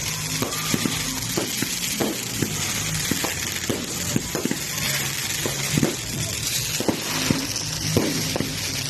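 Fireworks crackling: a steady sizzling hiss studded with many small sharp pops, several a second.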